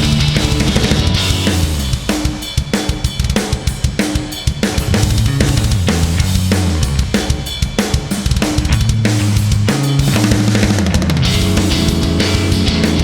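Loud rock music driven by a drum kit, with bass drum, snare and cymbal hits over sustained low bass notes.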